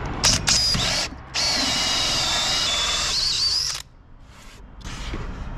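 Power drill turning a hole saw through a wooden antenna platform: two short spurts, then a steady high whine of about two and a half seconds that stops abruptly just before four seconds in, as the hole is cut through.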